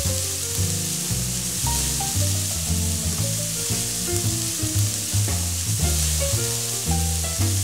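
Rice, diced vegetables and beef sizzling in an oiled frying pan as they are stir-fried. Background music with low notes changing in steps runs underneath.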